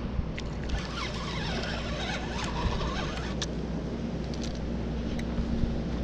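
Steady rush of river water with wind rumbling on the microphone, a scratchy rustle about a second in, and a few light clicks.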